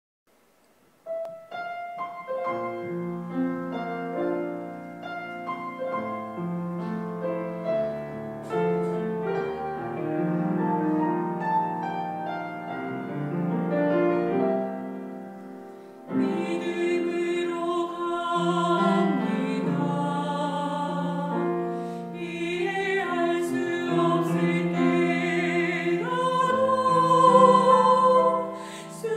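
Church choir anthem with piano and string accompaniment: after a second of silence, a piano-and-strings introduction plays, and the choir's voices come in about sixteen seconds in, singing in Korean.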